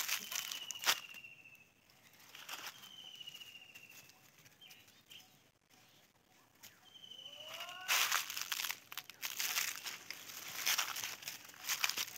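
Dry fallen leaves rustling and crunching underfoot, growing dense and loud from about eight seconds in. A faint high, slightly falling trilled call sounds three times in the background.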